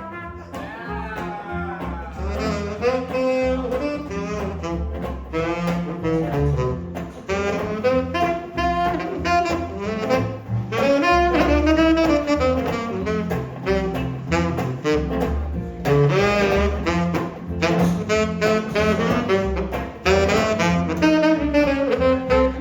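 Live traditional New Orleans jazz band playing an instrumental chorus: a horn carries a winding melodic solo over walking double bass and rhythm section.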